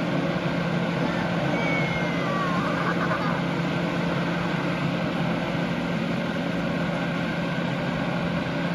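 Steady motor hum with a constant low tone under an even rushing noise, unchanging throughout.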